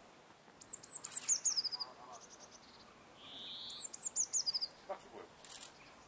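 A small songbird singing a high, quick phrase of notes that fall in pitch, twice, about three seconds apart, with a few fainter bird calls between.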